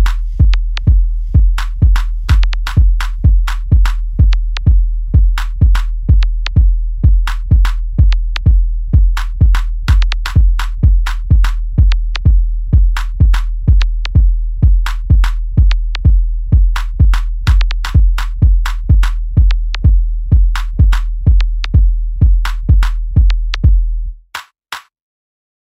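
Closing drum section of a house track: a steady four-on-the-floor kick drum about twice a second with short percussion hits over it, and no melody. It stops abruptly near the end, with two last hits before the track ends.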